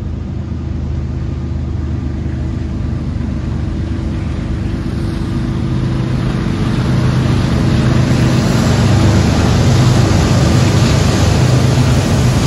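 Diesel freight locomotive approaching: a steady low engine drone growing louder, with a rising rush of train noise.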